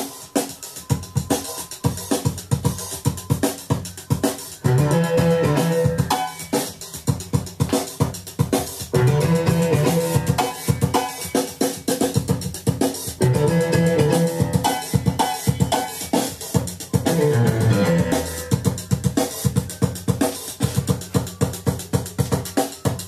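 Music with a drum kit playing a steady beat under pitched instruments.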